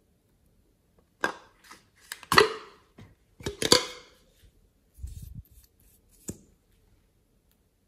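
A plastic liquid-lipstick tube and its applicator wand being handled: a few sharp clicking scrapes, the loudest two a little over a second apart, as the tube is pulled open. A soft low bump comes about five seconds in.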